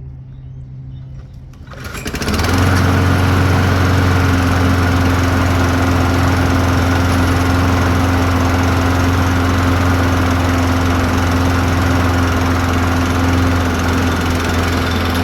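Toro Recycler walk-behind mower's small single-cylinder engine starting about two seconds in, then running steadily at an even speed.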